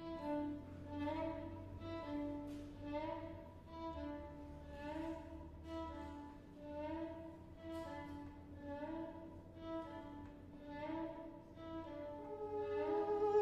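Violin duo playing a quiet, repeating figure of short notes, some sliding upward, about one a second, swelling louder near the end.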